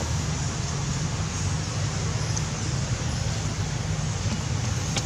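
Steady low rumble with an even hiss of outdoor background noise, with no clear single event.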